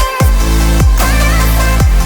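Dubstep-style electronic music: heavy bass with a falling sweep about once a second and a melody line above.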